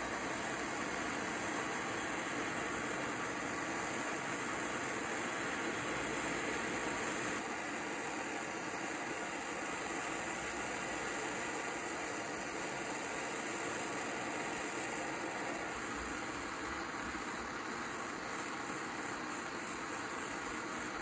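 Handheld gas torch burning steadily with a constant hiss, its flame held on a cast aluminum part that is not getting up to its 700 to 750 degree brazing temperature.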